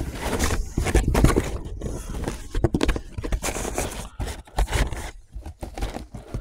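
Hands rummaging in a cardboard delivery box: cardboard rustling and scraping in irregular bursts, with short knocks as a beer bottle is lifted out.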